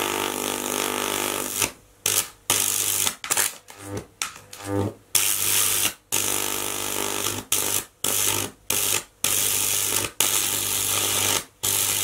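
High-voltage arc from a microwave oven transformer burning into an apple: a loud, harsh buzzing hum with a crackling hiss over it. It breaks off suddenly and starts again many times as the arc goes out and re-strikes.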